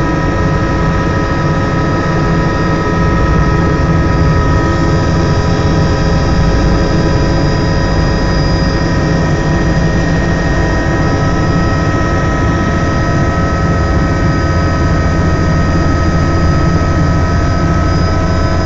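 Helicopter in flight: steady engine and rotor noise with a constant high whine.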